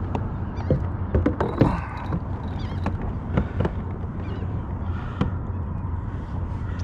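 Clicks and knocks of a freshly caught speckled trout being handled on a plastic kayak deck, over a steady low rumble. A few short bird calls sound in the background.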